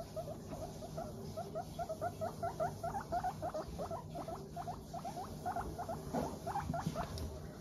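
Guinea pig chutting as it walks: a steady run of short 'pupupu' notes, about five a second, the sound of a contented, good-humoured guinea pig on the move.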